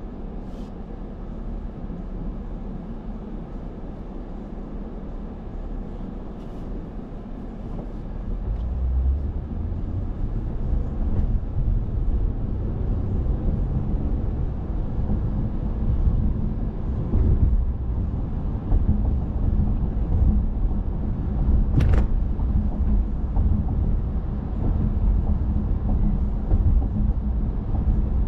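Car driving on the road: a steady low rumble of engine and road noise that grows louder about nine seconds in and stays up. A single sharp click sounds about two-thirds of the way through.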